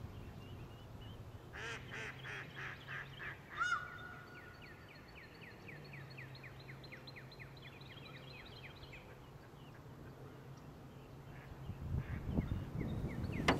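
Birds calling: a quick series of honking calls about two seconds in, then a long run of fast, repeated chirps that fades out after about nine seconds, over a steady low hum.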